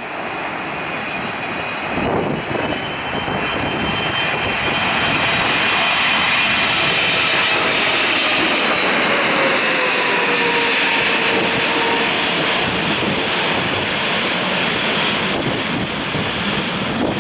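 Boeing 777-300ER's twin GE90 turbofan engines passing low overhead on final approach to land. The noise swells and stays loud through the middle, with a whine that falls in pitch as the jet goes by.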